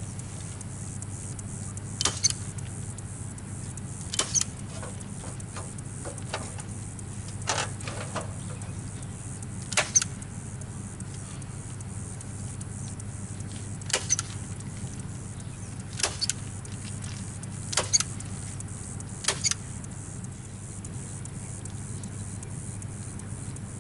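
Staple gun firing staples through chicken wire into a shingled roof: about ten sharp snaps a couple of seconds apart, some in quick pairs, over a steady low hum.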